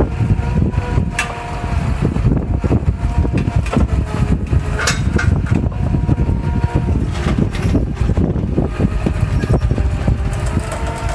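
Two Warn electric winches running under load as they pull a dead tracked skid steer, a steady motor whine over a heavy low rumble, with a few short clicks.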